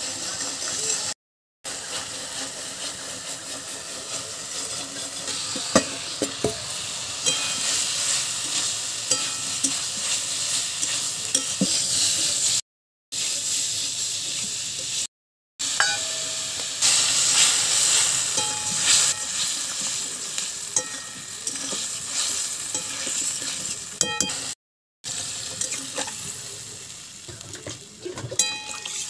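Onion-spice paste, then potato and pointed gourd pieces, sizzling in oil in a metal kadai while a spatula stirs and scrapes, with scattered light knocks of the spatula on the pan. The sound drops out briefly four times.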